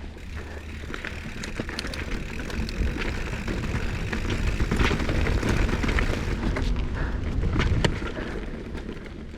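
Mountain bike riding down a dirt bike-park trail: tyres rolling over dirt and rocks, with sharp knocks and rattles from the bike and wind buffeting the microphone. It gets louder about halfway through and eases near the end.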